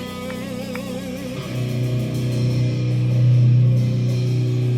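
Electric guitar through a stage amplifier playing a wavering sustained note, then a low note struck about a second and a half in and held ringing, swelling a little before the end.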